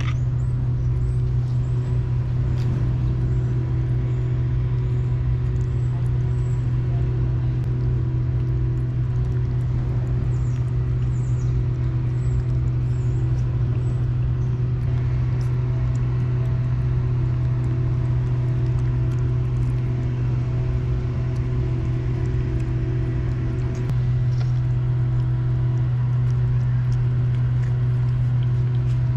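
A steady low mechanical hum, like an engine running, holding level with no change, with a few faint high chirps now and then.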